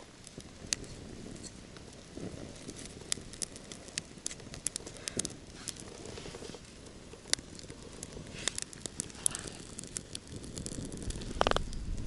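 Small campfire of wood chips and dry grass crackling just after lighting, with irregular sharp pops and a louder rustle near the end.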